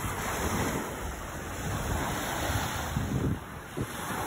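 Small lake waves lapping and breaking on a sandy shore, with wind buffeting the microphone in uneven low rumbles.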